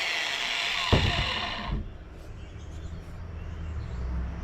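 Power drill spinning down after drilling into a scrap metal part to test what the metal is, its whine falling in pitch, with a knock about a second in. A low rumble builds near the end.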